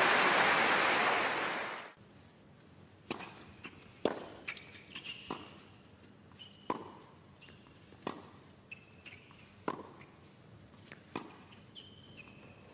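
Crowd applause that cuts off abruptly about two seconds in, followed by a tennis rally on a hard court: a serve, then sharp racket strokes and ball bounces every half second to second and a half, with short high shoe squeaks between them.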